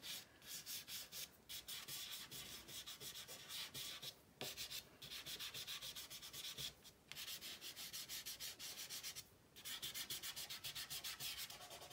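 Stick of dry soft pastel scratching across rough-surfaced tinted paper in quick short strokes, in runs broken by brief pauses every two to three seconds.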